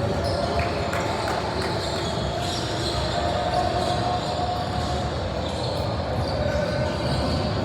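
Basketball being dribbled on a gym court, with crowd chatter echoing in the large hall.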